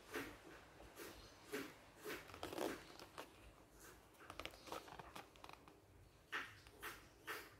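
A small cardboard medicine box being handled and turned over in the hand: a series of faint, short rustles and scrapes, a few louder ones about two and a half seconds in and near the end.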